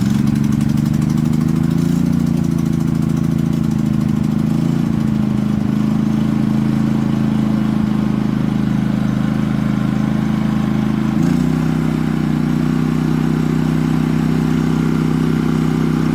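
Firman WH03242 dual-fuel inverter generator engine running steadily on propane just after its first start. Its note shifts slightly about eleven seconds in, with a short click, and then settles again.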